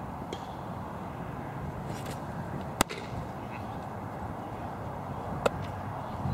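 A baseball smacking into a leather glove: one sharp pop about three seconds in and a second, smaller one about two and a half seconds later, over a low steady outdoor background.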